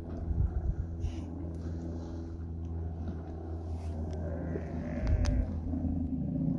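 Steller sea lions growling at a rock haul-out. From about four seconds in the growls grow louder, over a steady low hum.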